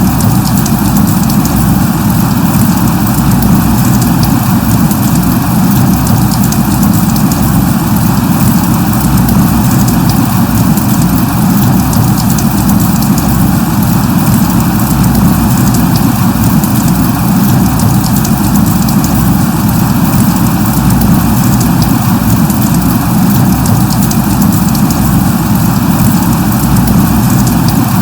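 Light rain falling steadily, a continuous even hiss that does not change.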